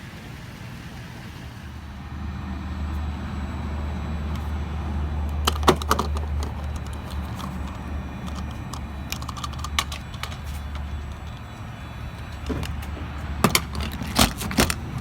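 Vehicle engine running with a steady low hum, with a few sharp clicks and rattles about six seconds in and a cluster of them near the end.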